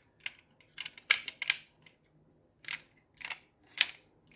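Diecast toy car being handled, giving a series of short, sharp clicks and taps, about eight spread over a few seconds.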